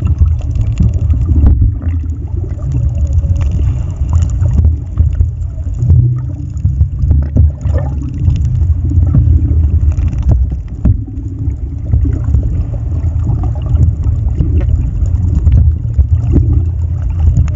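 Muffled low rumble of water heard through a camera held underwater, with a few faint knocks.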